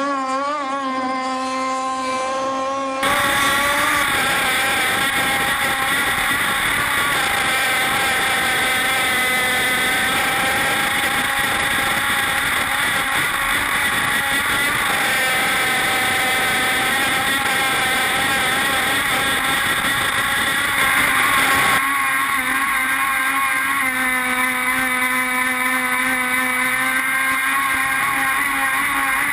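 Small two-stroke gas engine of a radio-controlled F1 outboard racing boat running at high revs, its pitch wavering up and down as the throttle and load change. For the first three seconds it is heard from the bank. Then it is close up from onboard, louder, with rushing water and spray mixed in.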